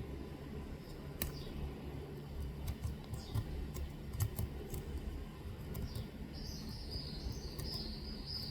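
Faint, scattered small clicks and scrapes of metal tweezers picking compacted dirt out of a phone's USB-C charging port, over a low steady background rumble. A high, wavering sound comes in for the last two seconds or so.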